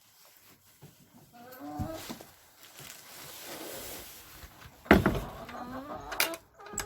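Chicken-coop door creaking on its hinges, then banging shut with a loud knock about five seconds in, followed by more creaks and two sharp clicks near the end, like a latch being worked.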